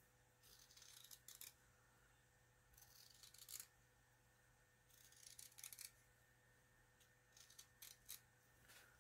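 Small sharp scissors snipping through cotton fabric just under a crocheted lace edging: faint quick snips in short runs every second or two.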